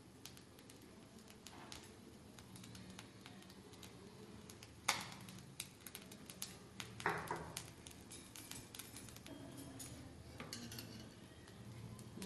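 Light clinks and clicks of steel kitchen utensils being handled while cooking uttapam on a tawa. There is a sharper clink about five seconds in and another about seven seconds in, over a faint steady background.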